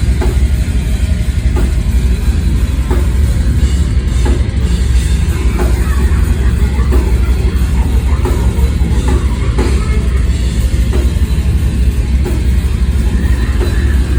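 Loud heavy rock music played by a band with a full drum kit, heavy in the low end and running without a break.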